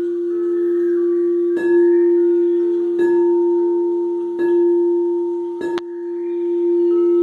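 Quartz crystal singing bowl tuned to F, ringing with one steady, sustained tone. It is struck four times, about one and a half seconds apart, each strike a short click that renews the ring.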